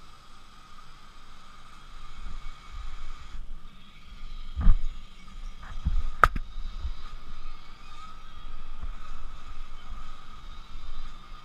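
Siamese kittens playing right at a GoPro on a couch, bumping and brushing against the camera and cushion: low thumps and rustling, with two loud knocks about five and six seconds in, the second a sharp knock on the camera itself.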